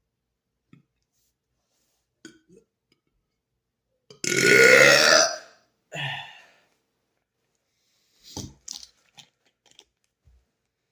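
A man's long, loud burp about four seconds in, its pitch bending up and then down, followed straight away by a shorter, weaker second burp. A few faint clicks come before and after.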